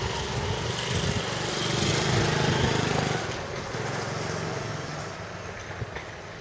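A vehicle passing close by: a rumbling noise that swells to its loudest about two to three seconds in, then fades away.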